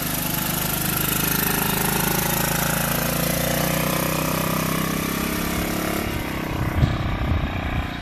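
Small petrol engine of a hydraulically driven Toylander buggy running steadily as it drives along, with a continuous hiss over it that drops away about six seconds in. A few low thumps follow near the end.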